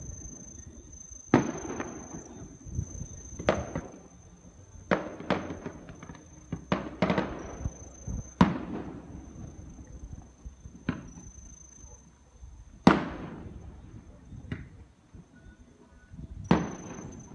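Aerial firework shells bursting across the bay: about ten sharp booms at irregular intervals, each trailing off in a rolling echo.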